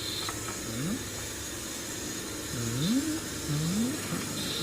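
Volkswagen Caddy's engine briefly revved three times, each rev a short rise in pitch, about a second in and twice near the end.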